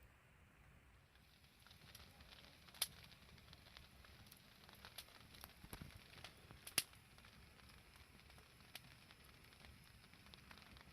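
Wood campfire crackling faintly, with scattered small pops and two sharper pops, about three and about seven seconds in.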